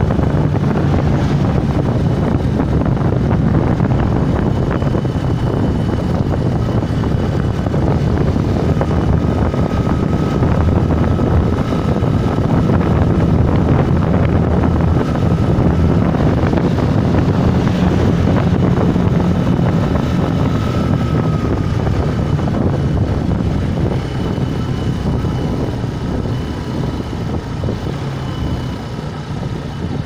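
Bajaj Boxer BM 125 X motorcycle's single-cylinder four-stroke engine running at road speed with wind rushing over the microphone, a steady loud drone that eases off over the last few seconds.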